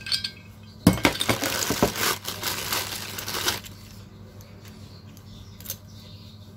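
Clear plastic packaging bag crinkling as a spray gun is pulled out of it, starting about a second in and stopping after about three seconds. A few light clicks of metal parts being handled follow.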